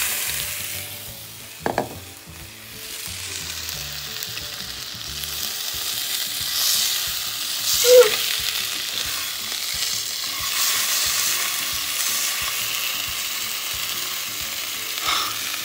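Chicken breast sizzling in a nonstick frying pan, a steady high hiss. A few short knocks and clicks come from the pan and a fork being handled, the sharpest about two seconds in.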